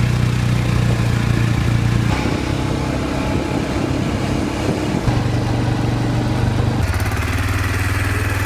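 Four-wheeler (ATV) engine running steadily while being ridden. Its pitch shifts to a new level a few times.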